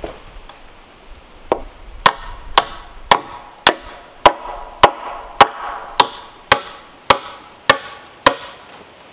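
A hammer striking wood, most likely nailing a board to a post: about thirteen steady blows, roughly two a second, each ringing briefly.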